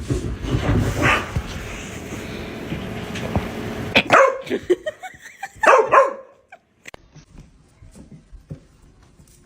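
A dog barks a few times, around four and six seconds in, after a few seconds of loud, steady noise.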